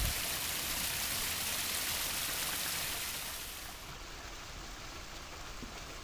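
Water splashing steadily down a small rock waterfall into a pond, growing quieter a little past halfway.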